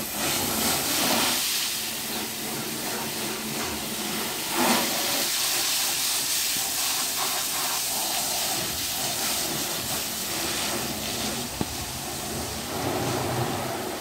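Water spraying hard from a hose nozzle onto a plastic machine body and wheel, a steady hiss with a brief surge about five seconds in. A single sharp click late on.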